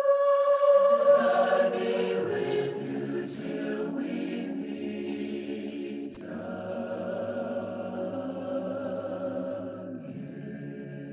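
Background music: a choir singing long held chords, the chord shifting about six seconds in and again near the end.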